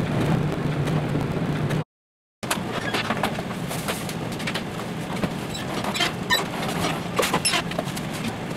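Convection oven's fan running with a steady hum, stopping abruptly about two seconds in. After a half-second gap come light clicks and taps of plastic cups being handled on a kitchen scale over a steady background hum, busiest near the end.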